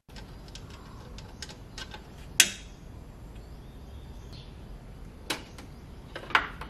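Scattered sharp clicks and knocks of hands handling a wall-mounted power inverter to take it down, the loudest about two and a half seconds in and two more near the end, over low room noise with faint bird chirps.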